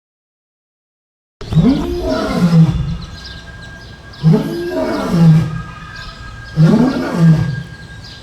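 Lion roaring in three near-identical calls about two and a half seconds apart, each rising then falling in pitch and ending in a low growl, after a second and a half of silence.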